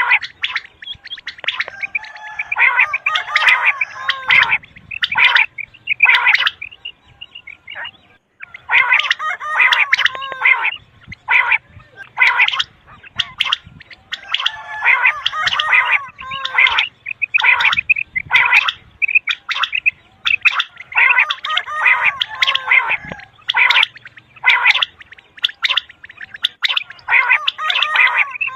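Common quail calling: bursts of quick, sharp repeated notes with short breaks between them. This is a recorded quail call track of the kind played by hunters to lure quail into nets.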